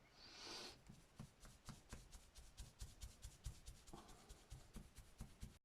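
Faint hand work on paper: a brief scratchy hiss, then a quick run of light scratchy strokes or ticks, about five a second, as if marking or rubbing across the page.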